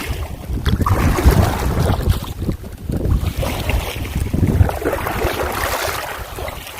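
Wind buffeting the microphone in uneven, rumbling gusts, over a steady rushing noise.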